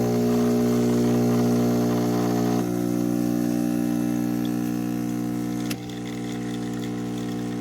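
Espresso machine's pump buzzing steadily as it pushes water through. It drops in level about two and a half seconds in, and again with a click near six seconds.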